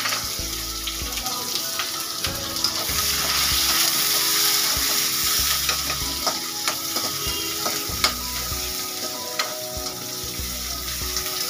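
Sliced onions sizzling as they fry in hot oil in a steel kadhai, a steady hiss, with scattered clicks and scrapes as they are stirred in the pan. This is the onions' first minutes of frying, before they turn brown.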